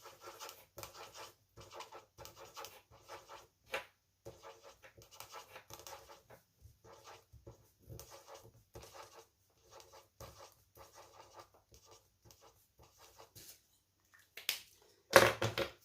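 Felt-tip marker dabbing dots onto paper: many short squeaky scratches a few times a second, with a louder scrape near the end.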